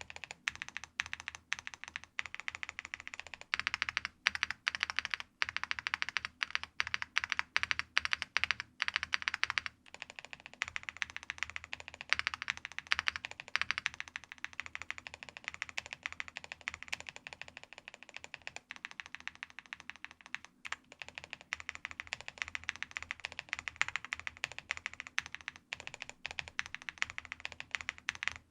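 Fast typing on a Qwertykeys QK65 gasket-mount mechanical keyboard with factory-lubed Angry Miao Icy Silver linear switches and ABS keycaps: a dense stream of key clacks in quick runs, with a few brief pauses.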